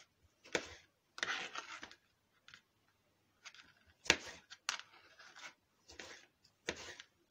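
Kitchen knife cutting a tomato into chunks on a plastic cutting board: a series of short, irregularly spaced cuts, the blade coming down onto the board.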